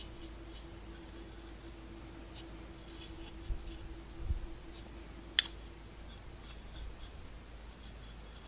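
Faint scratching of a paintbrush working clay wash into the panel lines of a small plastic model part, with a couple of light knocks and one sharp click about five seconds in.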